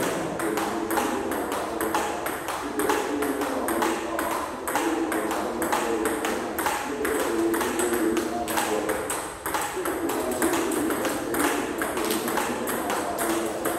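Table tennis rally: a plastic ball clicking in a quick, even rhythm off the paddles, one faced with pimpled rubber, and the table.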